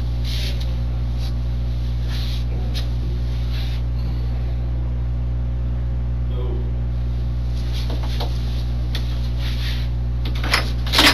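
Steady low electrical hum on the room recording, with faint rustling of movement. Near the end comes a sharp click and rattle of the door latch as the interview room door is opened.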